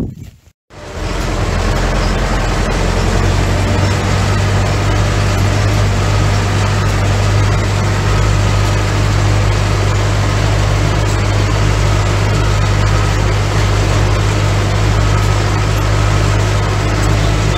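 Ursus tractor's diesel engine running steadily under load, heard from the cab while it pulls a trailer spreader throwing lime; it starts about a second in.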